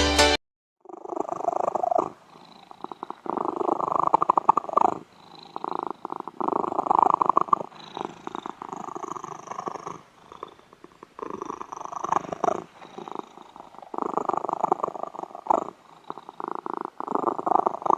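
Domestic cat purring close to the microphone, in steady rasping waves that swell and fade about every two seconds with its breathing.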